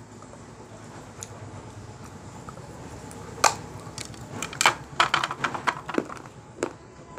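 Teeth biting into a hollow piece of grey baked clay: one sharp crack about three and a half seconds in, then a quick run of crisp cracks and crunches as the shell breaks apart, and one last crack near the end.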